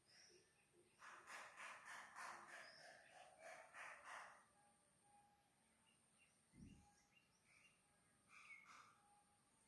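Near silence: faint background noise with a steady high hiss, soft scratchy sounds in the first half and again near the end, and a short low bump about two-thirds of the way in.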